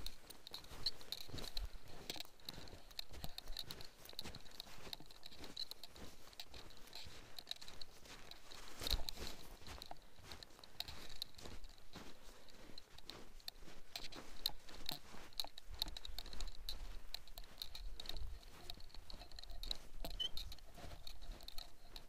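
Footsteps crunching through snow at a steady walking pace.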